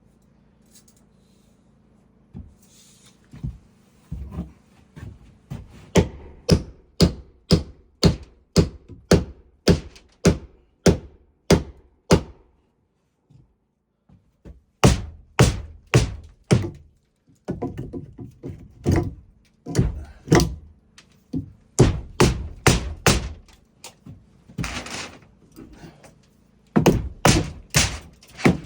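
Hammer driving nails into wooden framing: repeated sharp strikes about two a second, in two long runs broken by a pause of about two seconds in the middle.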